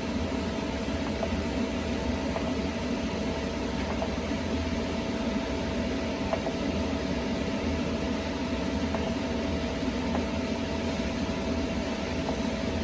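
Steady machine hum and hiss from the idling, powered-on welding equipment, with a faint constant tone and a few faint clicks.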